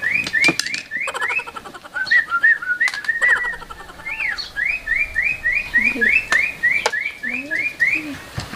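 Crested myna calling: runs of quick rising whistled notes, about four a second, broken in the middle by different chirps and sharp clicks.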